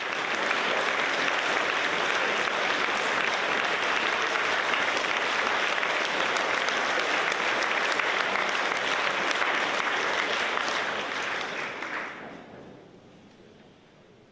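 Concert audience applauding steadily, the clapping dying away about twelve seconds in.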